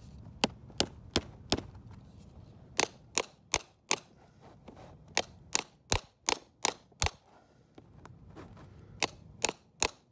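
A hammer striking a brass grommet in sailcloth, setting it into the sail. About seventeen sharp blows come in short runs of three to six, about three a second, with brief pauses between the runs.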